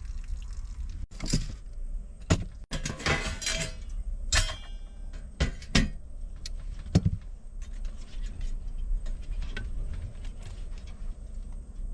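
Kitchen handling sounds: a run of clicks and knocks from utensils and containers, clustered into a short clatter about three seconds in, over a steady low rumble.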